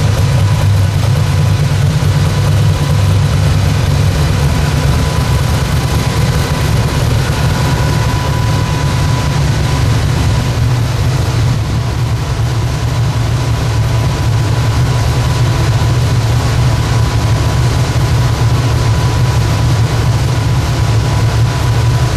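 Twin-turbocharged Ford Cleveland V8 of a De Tomaso Pantera idling steadily, with no revving.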